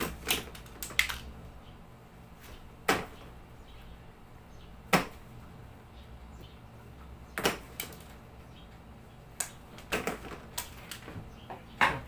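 Irregular sharp clicks and taps of hand tools working electrical wire, about a dozen spread out, with a low steady hum underneath: the wire is being stripped for connecting to the lamp's terminal.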